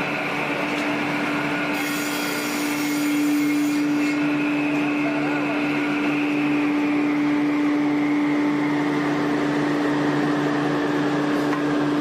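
Powered saw on sawmill equipment running steadily with a constant motor hum, with a brief hiss about two seconds in.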